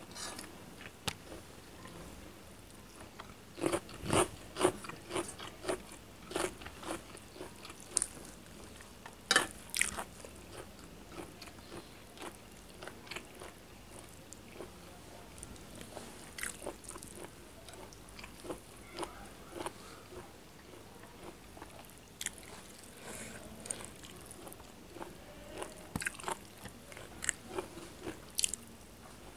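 Close-miked eating of chicken curry and rice: chewing, with sharp crunchy bites that come in quick bunches of clicks every few seconds.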